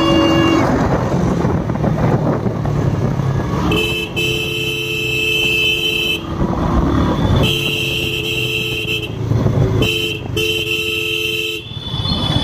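A two-tone vehicle horn honking in three long blasts of about two seconds each, the last briefly broken, over engine and road noise in traffic.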